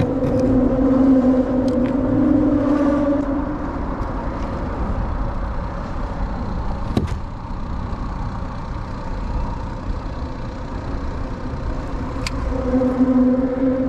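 Road traffic crossing the steel truss bridge overhead: a steady hum over a low rumble that fades about three seconds in and swells back near the end. A single sharp knock about seven seconds in.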